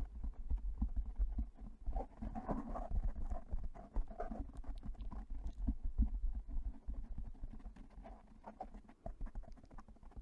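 Fingers rubbing, scratching and tapping on a foam microphone windscreen right at the mic: a low rumbling with many small crackles and taps.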